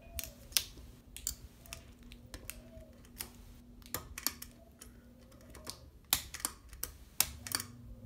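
Hunter Sea Air ceiling fan running with a faint steady motor hum, overlaid by irregular sharp clicks and ticks, the loudest about half a second in and twice near the end.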